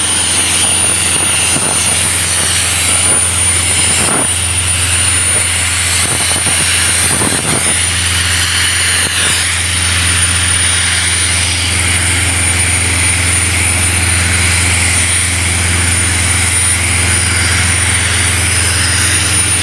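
Kaeser M57 diesel-driven portable screw compressor running steadily with a low drone. Compressed air hisses from a hand-held blow lance as it blows dust off the concrete road base before the tack coat, with a thin steady high whistle over the hiss.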